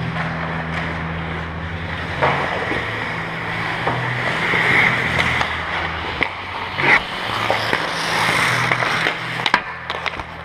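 Ice hockey play heard from inside the goal: skate blades scraping and carving the ice, with sharp clacks of sticks and puck, the loudest about seven seconds in, over a steady low rink hum.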